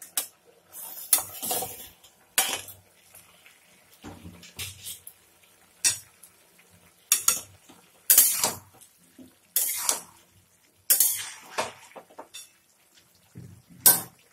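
A steel plate lid clanks as it is lifted off a steel kadai, then a metal spatula stirs diced potatoes in the pan, with repeated scrapes and clinks of metal on metal about once a second.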